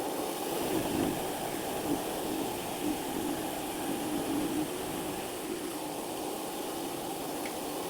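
Mini bandsaw running steadily, its blade resawing a board along its length.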